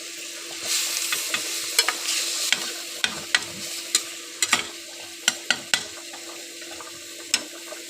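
Minced beef sizzling in a frying pan while a spatula stirs it, tapping and scraping against the pan a dozen or so times at an irregular pace. The sizzle is strongest in the first few seconds.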